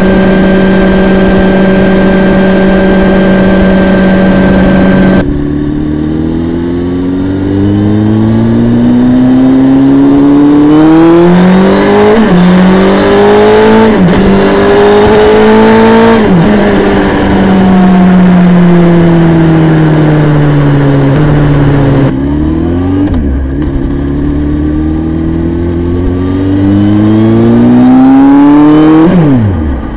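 Honda CBR929RR's inline-four engine, heard through a microphone inside the bike's tail compartment. It holds a steady high note, then pulls hard through the gears with rising revs and a sudden drop in pitch at each upshift. It eases off with the revs falling, then accelerates through the gears again.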